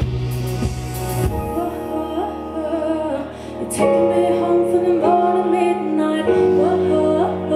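Live band playing a song: a woman singing over electric guitar, bass guitar and drums. About a second in, the cymbal hits and heavy bass drop away, leaving held chords under the voice.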